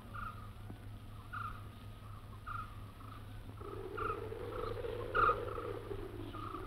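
An animal's short chirping call, repeated about once a second, over a steady low hum and a hiss that swells about halfway through.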